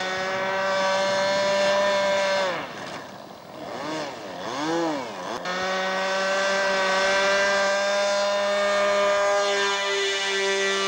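RC model airplane engine running at high revs with a steady high-pitched buzz. About two and a half seconds in, the pitch drops and swoops up and down in several arcs. Near the middle it settles back to a steady full-throttle pitch for the takeoff and climb-out.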